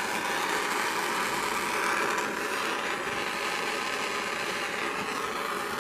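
Handheld gas soldering torch flame hissing steadily while heating a copper pipe fitting's joint for soldering.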